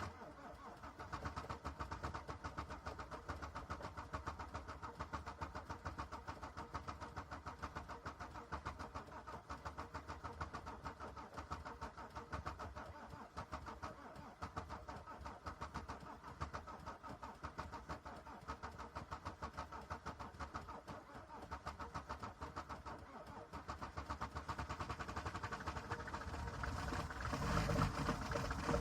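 Diesel car engine at a cold start in extreme frost, with a fast, even pulsing that sets in abruptly and grows louder over the last few seconds.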